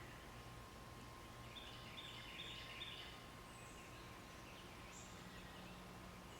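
Faint small-bird chirping over a quiet outdoor background: a quick run of chirps in the middle and a few short, high single calls.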